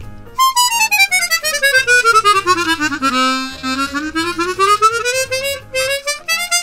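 Hohner Xpression 12-hole chromatic harmonica playing a fast scale down to a low note about halfway through, then back up, with the slider button pressed in quickly. The slider is fast and smooth, but its key noise is a bit loud because it is not lubricated.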